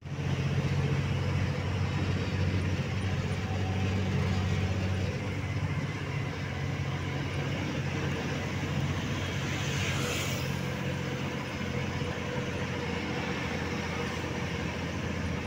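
Trailer truck's diesel engine running steadily, heard from inside the cab while driving, with a brief whoosh about ten seconds in.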